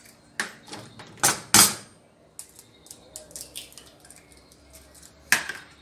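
Eggs being cracked against a hard edge: a series of sharp taps and clicks of shell, the loudest about a second and a half in and another near the end, with lighter ticks between.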